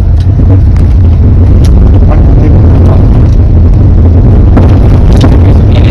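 Steady low rumble inside a Hyundai i20 car cabin while it is being driven, loud on the phone's microphone, from the road and engine.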